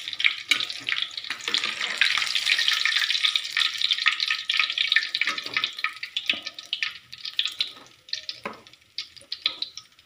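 Hot oil sizzling and crackling in a wok as flour-coated chicken pieces finish frying and are lifted out with a metal spatula, with a few knocks of the spatula; the sizzle thins out after about six seconds.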